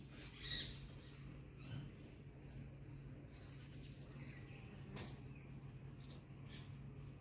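Faint bird chirps, many short high calls scattered throughout, over a low steady hum.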